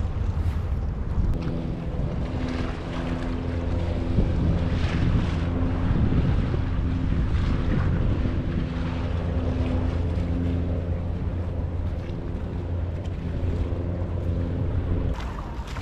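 A boat engine droning steadily over the lagoon, with water lapping against the stone quay and wind buffeting the microphone. The engine drone starts about a second in and cuts off suddenly near the end.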